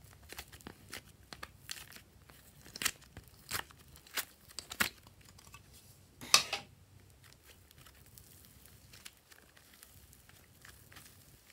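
Soft clay being pried out of a plastic mould and squished by hand, making scattered sticky clicks and crackles, with one louder crunchy squelch about six seconds in. Quieter handling follows as slime is stretched.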